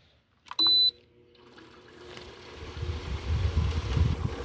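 Air conditioner being switched on: a click and one short electronic beep, then its fan starts and the running noise builds over a few seconds into a loud, steady rumble.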